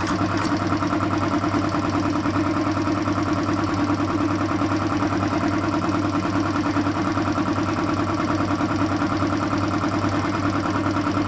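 A 2 hp compressor running steadily, with a fast, even pulsing beat.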